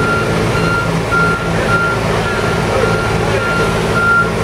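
A vehicle backup alarm beeping steadily at one pitch, nearly twice a second, over the steady hum of a heavy machine's engine running.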